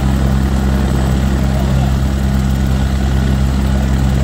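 Turbine helicopter's engine and main rotor running steadily while it sits on the ground, a constant low hum with turbine noise above it.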